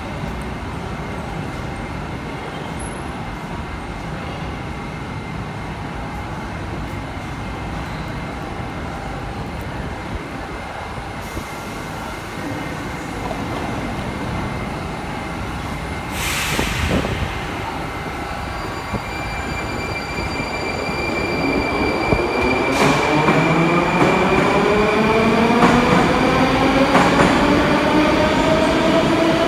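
Moscow Metro train at a station platform: a steady rumble, a short burst of hissing about halfway through, then the train pulls out. Over the last several seconds its motor whine, several tones together, rises steadily in pitch as it accelerates away.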